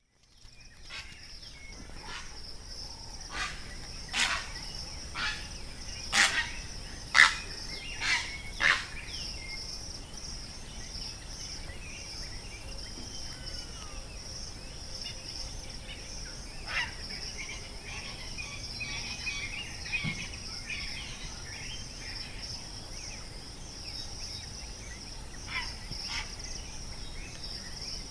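A steady, high insect drone, typical of crickets. Over it come a run of about nine short, sharp ticks in the first nine seconds, a few more later on, and faint twittering bird calls in the middle.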